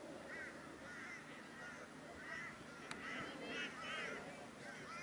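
Birds calling repeatedly, short arching calls about twice a second, with a single sharp click about three seconds in.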